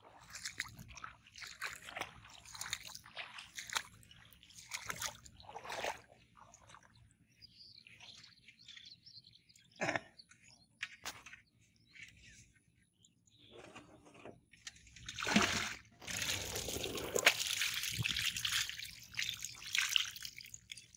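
Shallow water splashing and sloshing as a person wades and works a fishing net and catch through a flooded field, with scattered trickles and drips. About fifteen seconds in comes a longer, louder spell of pouring and splashing water lasting several seconds.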